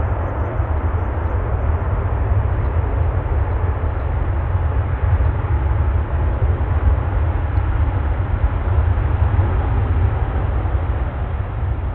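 Airbus A380-861's four Engine Alliance GP7200 turbofans at taxi power: a loud, steady jet rumble and hiss as the airliner rolls past, easing slightly near the end.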